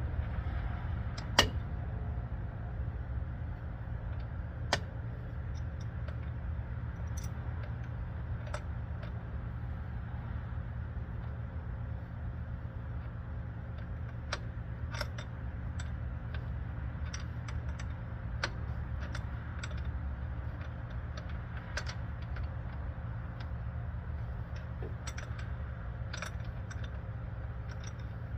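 Wrenches working on metal fuel line fittings as they are tightened: scattered light metal clicks and taps, the sharpest about a second and a half in, over a steady low hum.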